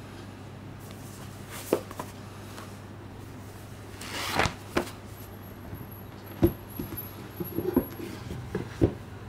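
Paperback manga volume handled in gloved hands: its pages riffle in a quick flutter about four seconds in, followed by light taps and knocks of books against a cardboard box set. A low steady hum sits underneath.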